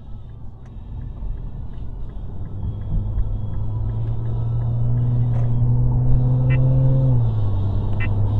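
Car engine and road noise inside the cabin, growing louder as the car speeds up. A steady engine hum drops in pitch a little after seven seconds in, as at a gear change. Faint, even ticking at about three a second runs through the first couple of seconds.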